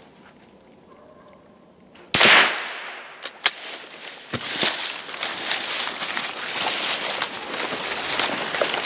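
A single gunshot about two seconds in, the shot to knock the treed raccoon out of the tree. It is followed by a few knocks and then steady crackling of dry leaves and brush as someone pushes through the undergrowth.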